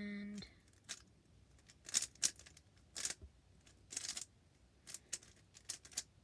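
Layers of a YJ Yulong V2 M 3x3 speed cube being turned by hand during a solve: uneven plastic clacks and scrapes, some in quick pairs.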